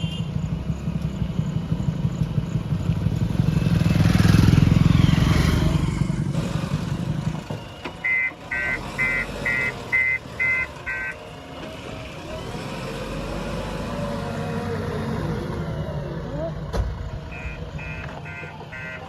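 JCB 3DX backhoe loader's diesel engine running, loud at first and dropping to a quieter run about seven seconds in. Its reversing alarm sounds a run of about seven evenly spaced high beeps, about two a second, starting about eight seconds in, and again near the end.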